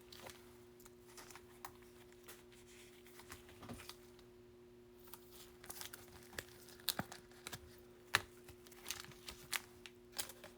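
Faint rustling, crinkling and small clicks of trading cards and foil pack wrappers being handled, more frequent in the second half, over a steady low hum.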